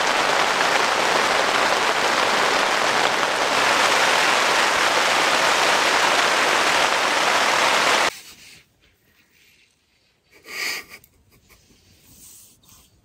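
Heavy rain falling on a tent, a steady hiss that cuts off suddenly about eight seconds in. Near silence follows, broken by one brief sound a couple of seconds later.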